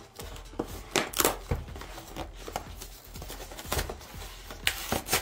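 A screwdriver-set box being opened by hand: cardboard and plastic packaging scraping and clicking irregularly, with the sharpest knocks about a second in and again near the end.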